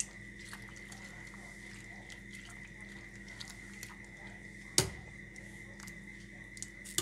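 Metal ladle stirring soup in a stainless steel pot, with light clinks and one sharp knock of the ladle on the pot about five seconds in, over a steady high hum.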